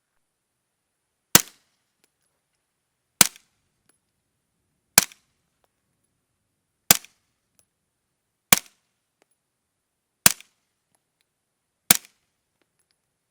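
Seven suppressed gunshots fired at a steady pace, about one every 1.7 seconds, through a Rugged Suppressors Obsidian 45 suppressor. Each is a sharp crack with a brief tail.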